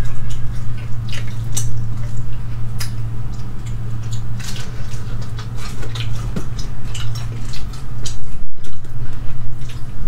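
Cooked crayfish being cracked and peeled by hand and eaten: many short crackles of shell and wet sucking and squishing sounds, over a steady low hum.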